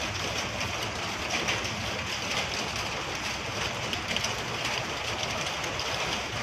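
Rain mixed with small volcanic stones falling: a steady, dense hiss of many small ticks over a steady low rumble.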